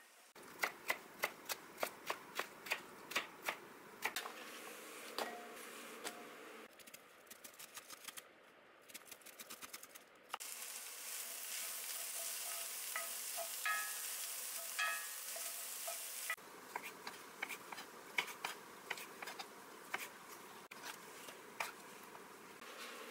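Cooking sounds in a few cut-together shots. First a run of sharp taps and stirring, like a utensil against a pan. Then a steady sizzle of food frying for about six seconds, which starts and stops abruptly, then more tapping.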